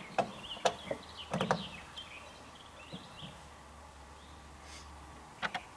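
Small birds chirping, with several sharp clicks and knocks in the first second and a half and a pair more near the end.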